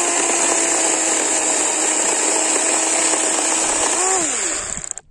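DeWalt DCCS620 20V brushless cordless chainsaw cutting through a wooden board: a steady motor whine under load with the chain rasping through the wood. About four seconds in the pitch jumps up briefly as the cut finishes, then the motor winds down and stops.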